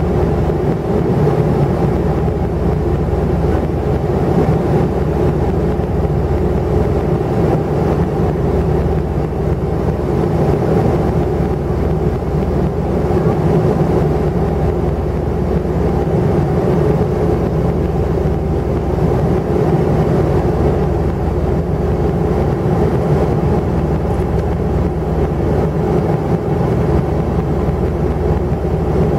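Steady drone inside a jet airliner's cabin in flight: engine and airflow noise with a low, even hum and no breaks.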